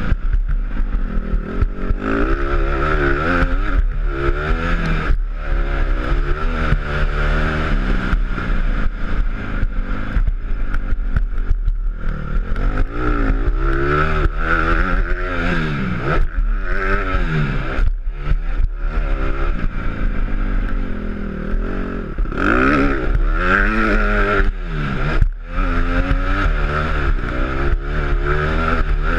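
Honda CRF150 dirt bike's four-stroke single-cylinder engine revving up and falling back again and again as the throttle is opened and shut around a motocross track, with knocks and rattles from the bike running over bumps and a steady rush of wind.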